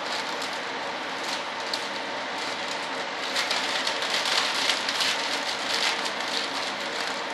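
Plastic vacuum-bagging film crinkling and crackling as hands smooth and press it down over a resin-wetted foam elevator, over a steady hiss. The crackling grows denser and louder from about three seconds in, then eases near the end.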